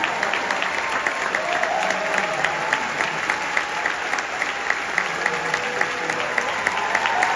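Large theatre audience applauding: a dense, steady clapping of many hands as the dancers bow.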